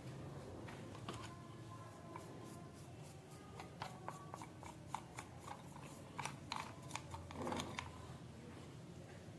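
A run of light metallic clicks and clinks from the steel garden shears being handled, thickest through the middle of the stretch, over a low steady hum.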